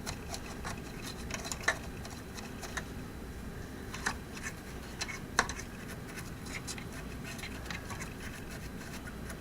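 A few light clicks and small scratching sounds of hands and tools working inside an old tube radio's chassis while it is cleaned, over a low steady hum.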